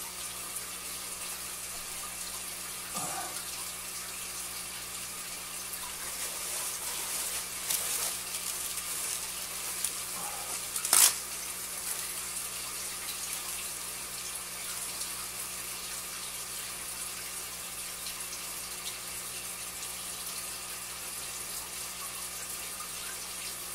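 Steady running and splashing water from an aquarium's filter, over a low steady hum. Now and then plastic bags rustle as they are handled, with one sharp click about eleven seconds in.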